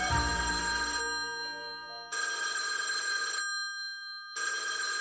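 Bell telephone ringing: three rings of a bit over a second each, about a second apart.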